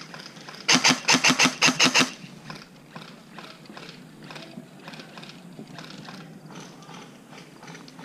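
Airsoft electric gun firing a fully automatic burst of rapid, even clicks about a second in, stopping abruptly after about a second and a half. Fainter scattered clicks follow.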